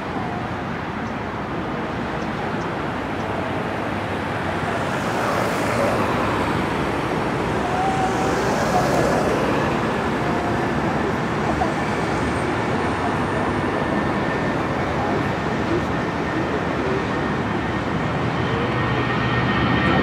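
Airbus A320 jet engines running in a steady roar that slowly grows louder. A high whine comes in about halfway and a second, higher whine near the end as the engines spool up for takeoff.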